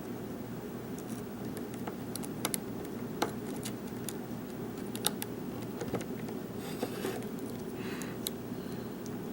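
Lock pick working the pins of a Zing lockout padlock under bottom-of-keyway tension: scattered small metallic clicks with a couple of short scrapes, over a steady low hum.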